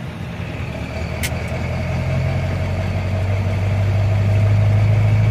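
Motor vehicle engine running with a steady low hum, getting louder over the first four seconds, with a brief click about a second in.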